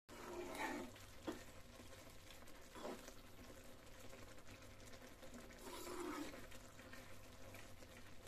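Faint scraping of a spoon stirring thick omelet curry in a kadai, a few soft scrapes spread out over a low background hiss.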